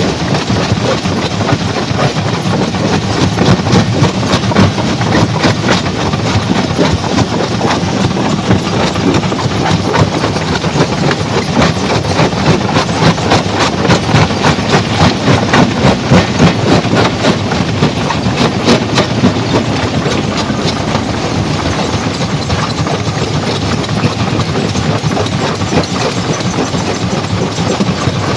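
Stone crusher running, with a loud, continuous rattle of rock being broken and clattering through the machine, dense with rapid knocks.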